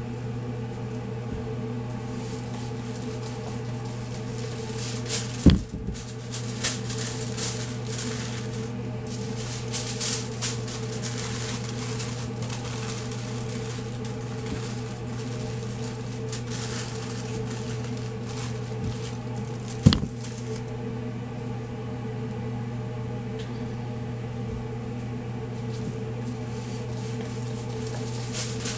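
Aluminium foil crinkling and rustling in bursts as a brisket is wrapped by hand, over a steady mechanical hum from kitchen equipment. Two sharp knocks, one about five seconds in and one about twenty seconds in.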